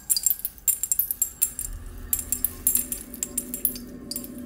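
Christmas tree ornaments jingling and tinkling: quick, irregular metallic clinks with a light ringing, as the ornaments on the tree are set moving.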